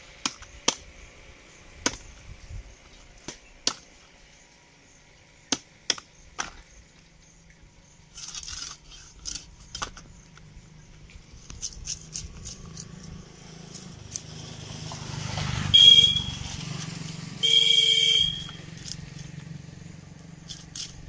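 A knife scraping scales off a rohu fish in short, sharp, irregular strokes. About three quarters of the way through, a vehicle's rumble builds and its horn sounds twice, briefly and loudly.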